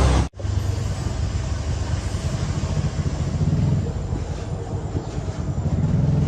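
A machine motor running steadily with a low hum. It cuts out abruptly for an instant about a third of a second in, then carries on.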